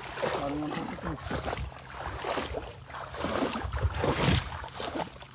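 Legs wading through shallow water over a muddy bottom: irregular swishing and splashing steps, one after another.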